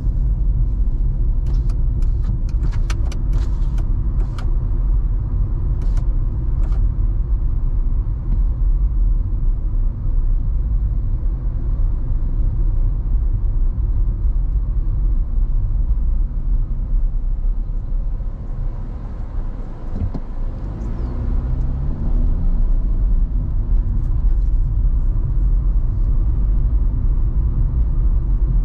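Car interior road noise picked up by a windshield-mounted camera: a steady low rumble of engine and tyres. A run of light irregular clicks and rattles comes in the first several seconds. About two-thirds of the way through the noise dips as the car slows at an intersection, then the engine note rises as it pulls away.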